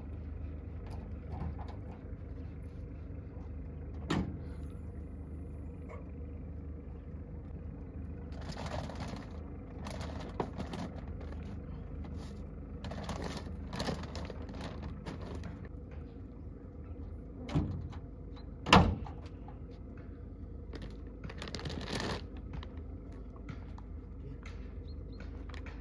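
Rummaging in a camper van's rear storage hatch: plastic bags rustling in short spells with a few knocks, then two thumps about a second apart some three quarters of the way through, the louder one the hatch door being shut. A steady low hum runs underneath.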